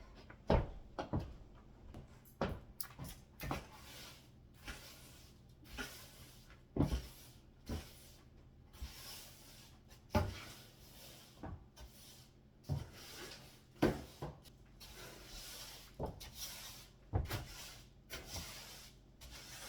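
Irregular knocks and bumps, a second or two apart, with soft rubbing and swishing between them: things being handled and set down in a small room.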